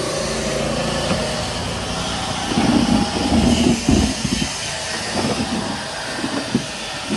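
Street noise dominated by a motor vehicle engine running nearby, a steady low hum, with irregular low thumps and swells around the middle.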